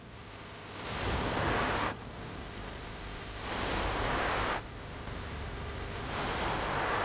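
A rushing noise, like wind or surf, that swells up and cuts off abruptly, three times over.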